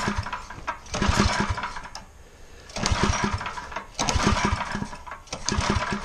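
Small mini bike engine being pull-started again and again: about four cranking bursts of roughly a second each, the engine turning over and sputtering but not catching.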